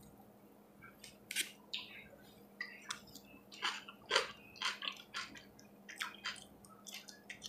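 Person chewing fried plantain with open-mouth eating noises: short wet smacks and clicks, about two a second.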